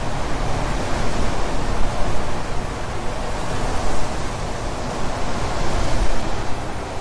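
A steady, loud rushing noise with a deep rumble underneath, even throughout, with no distinct bangs or tones.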